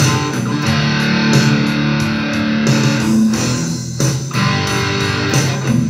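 Electric guitar, a Stratocaster-style solid-body, played over a rock backing track, an instrumental passage with no singing.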